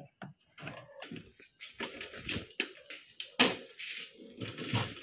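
Irregular clicks and knocks of a MIG welding machine's casing being handled and turned around on a workbench, with one louder knock about three and a half seconds in.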